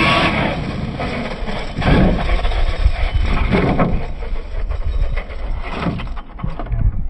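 Electric radio-controlled monster truck driving fast across grass, its motor whining up in pitch as it starts, with several knocks as the truck bounces and tumbles.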